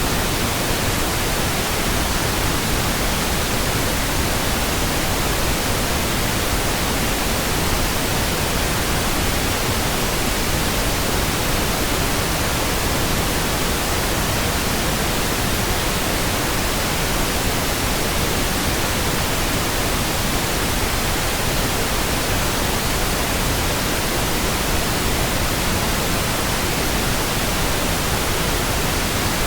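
Steady synthetic pink noise: an even, unchanging hiss spread across the whole range from deep to high, with no tones or events.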